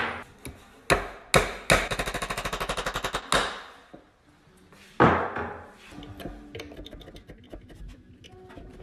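A string of sharp knocks, broken about two seconds in by a fast rattle of more than a dozen blows a second that lasts about a second and a half. Another knock follows about five seconds in, then faint scattered ticks.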